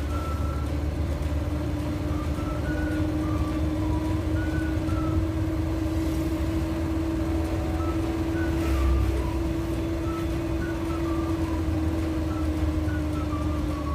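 Suzuki Carry's engine running and road noise heard from inside the cabin while driving at a steady speed, with a low steady rumble and a steady hum.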